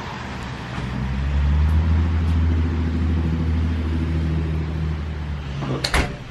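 A motor vehicle going by, its low engine hum swelling about a second in, holding, and fading toward the end. A single sharp click just before the end.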